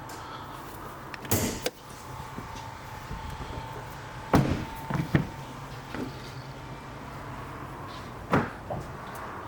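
Car doors being opened and shut: a series of clunks and latch clicks over a steady low hum, the loudest about four and a half seconds in.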